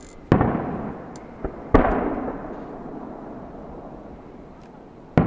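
Aerial fireworks shells booming: three loud bangs, about a third of a second in, just under two seconds in and right at the end, with a smaller pop between the first two. Each bang trails off in a long echoing rumble.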